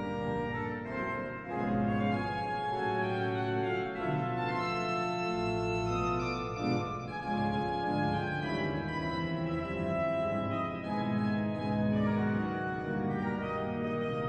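Organ music: a score of sustained chords and melody notes that change every second or so.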